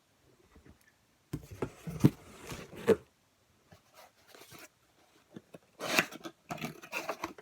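Irregular rustling and rubbing of handled fabric and packaging, in two short spells with quiet gaps between.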